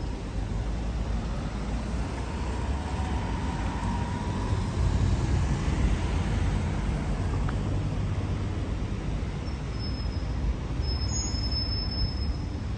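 Street traffic at a crossing: cars passing close by over a steady low rumble of road noise, loudest about five seconds in. A faint high whistle sounds briefly near the end.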